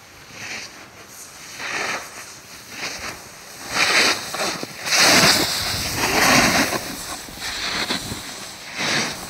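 Snowboard carving through slushy spring snow: a run of hissing, scraping swooshes, one for each turn about once a second, loudest near the middle as the board passes close by.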